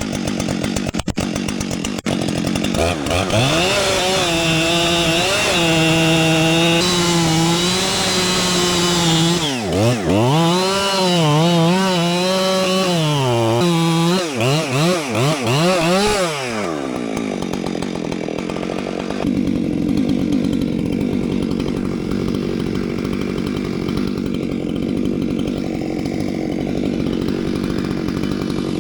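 Large two-stroke chainsaw cutting into a tree stump: it runs up to high speed, its pitch dips and climbs again several times midway, then it settles to a lower, quieter run for the last third.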